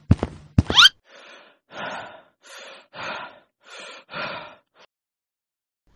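A cartoon creature's heavy footsteps land twice, followed by a quick rising swoop. Then come about six heavy, breathy sighs or pants, each about half a second long.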